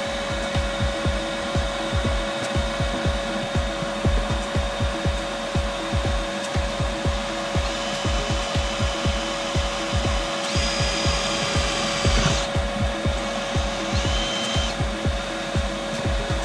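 Cordless drill whining in three short bursts, the first about halfway through, as it re-drills bolt holes through the van's sheet-metal side for a shore power inlet. Under it runs a steady hum with a regular low pulse.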